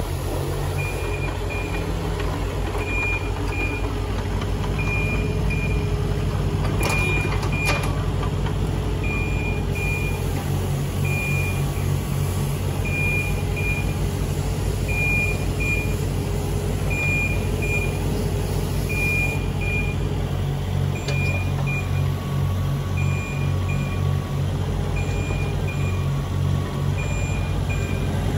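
Volvo EC18D mini excavator's diesel engine running steadily, its note wavering in places as the arm and tracks are worked. Over it, a high warning beeper sounds in short pairs about every two seconds. A couple of sharp knocks come about seven seconds in.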